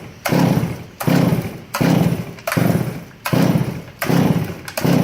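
Stihl 461 two-stroke chainsaw engine running in regular surges, about one every three-quarters of a second, each picking up and then dying back. It has no carburetor and is fed gas by hand, so it cannot be adjusted and is flooding.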